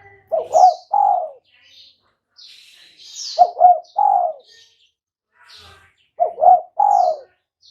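Spotted dove (tekukur) cooing: three phrases about three seconds apart, each two quick short notes followed by a longer falling note. Fainter high-pitched chirps of small birds sound between the phrases.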